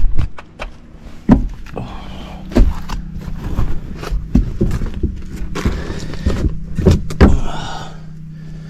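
Scattered knocks and rustling as someone moves about and handles tools and wire, over a steady low hum.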